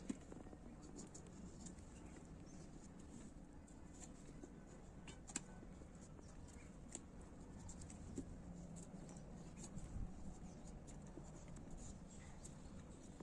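Faint scratching of a small curved knife shaving the skin off a ripe papaya, with a few sharp clicks of the blade, the loudest about five seconds in.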